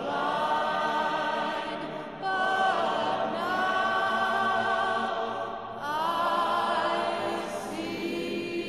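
Background music: a choir singing slowly in long held notes, phrases breaking and starting again twice.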